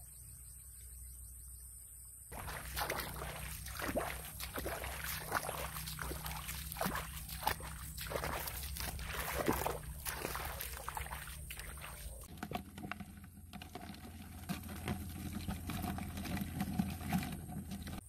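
Irregular splashing, sloshing and rustling steps through a wet, harvested rice paddy, a quick string of noises from about two seconds in that stops abruptly around twelve seconds, followed by quieter, steadier rustling and a faint hum.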